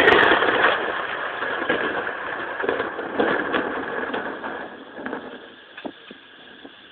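Thunderclap: a sudden loud crack that rolls into crackling rumbles and fades away over about five seconds.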